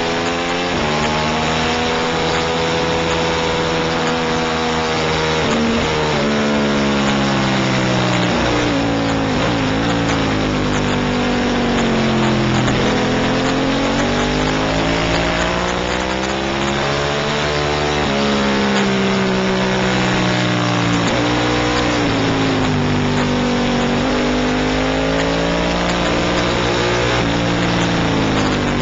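Onboard sound of a racing motorcycle's engine at speed, its pitch climbing and dropping several times through the laps' straights and corners, over a constant rush of noise.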